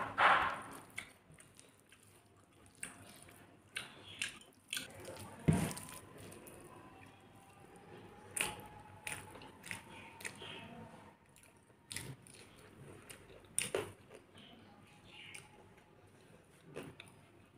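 Close-up eating sounds: chewing and biting, with scattered sharp clicks and crunches as fingers scoop khichuri across a steel plate and a crisp papad is broken. One louder knock comes about five seconds in.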